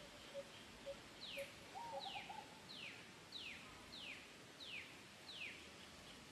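Faint bird calls: a low single note repeats about twice a second and stops about two seconds in, then seven high whistled notes, each sliding down in pitch, follow one another at an even pace.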